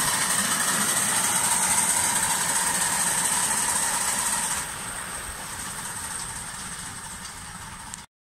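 7¼-inch gauge De Winton vertical-boiler steam locomotive and its wagons running along the track, growing quieter about halfway through as the train moves away, then cutting off suddenly near the end.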